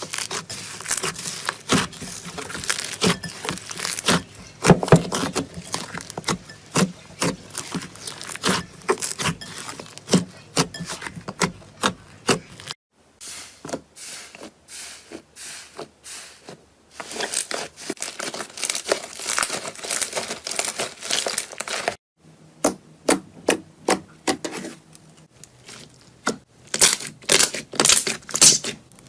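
Slime being pressed and worked by hand, giving off dense crisp crackling and popping clicks. The sound breaks off twice, about 13 and 22 seconds in, and starts again.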